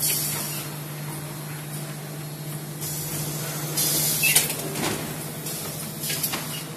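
Paper core making machine running with a steady hum, and repeated short bursts of hissing noise, the loudest a little past the middle.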